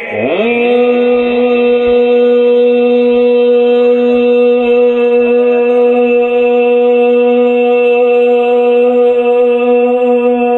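A man's voice holding one long note of a naat through a microphone and loudspeakers: it swoops up at the start, then stays on one steady pitch.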